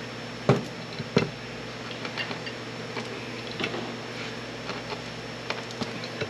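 Sharp knocks and clicks of hand-tool work on the header as it is forced apart with wedges. Two loud knocks come about half a second and a second in, then lighter scattered ticks, over a steady low hum.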